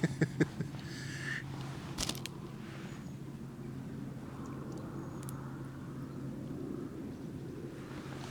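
Quiet riverbank background: a faint, steady low rush of water with a low hum. There are a few soft knocks right at the start and a sharp click about two seconds in.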